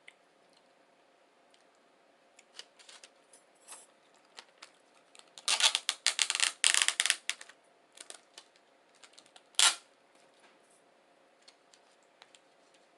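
Close-miked eating sounds: scattered clicks and crackles of chewing a breakfast burrito, densest in a two-second spell around the middle, with one loud crackle near the end.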